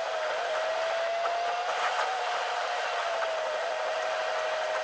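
Inside a moving car's cabin: steady rushing noise with a whine that wavers slightly in pitch.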